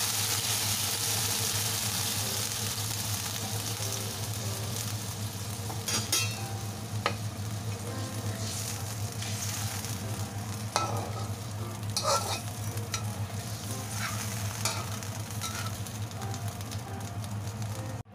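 Soy sauce sizzling in a hot wok around a whole frying chicken. The hiss is strongest at first and eases a little. From about six seconds in, a metal spatula scrapes and knocks sharply against the wok several times as the chicken is turned.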